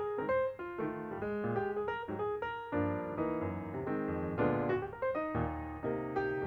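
Background piano music, a run of quick notes over held chords.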